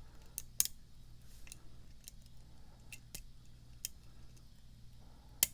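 Lock pick and tension wrench working the pins of a custom pin-tumbler challenge lock fitted with serrated spools: scattered light metallic clicks as the pins are probed and set. The two sharpest clicks come about half a second in and near the end.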